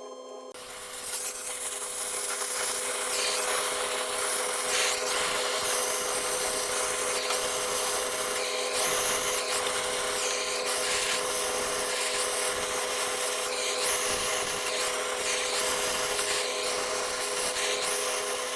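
Flushometer-valve toilet flushing: a loud rush of water through the valve and bowl starts about half a second in and keeps going, surging a little now and then.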